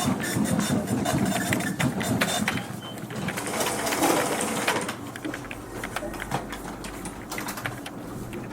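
Office fax machine running and feeding paper: a fast, busy mechanical clatter that eases off about five seconds in, leaving a low hum and lighter clicks.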